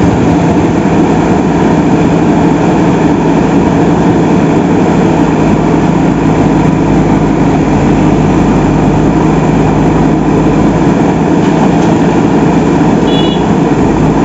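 Heavy diesel engine of a JCB 3DX backhoe loader running steadily at an even speed.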